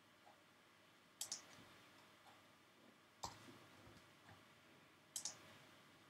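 Faint clicks of a computer mouse and keyboard in near silence: a quick pair about a second in, a single click near the middle, and another quick pair about five seconds in.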